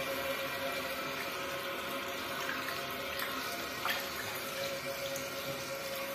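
Toilet cistern fill valve running, water hissing steadily into the tank with a faint whine, and a single sharp knock about four seconds in.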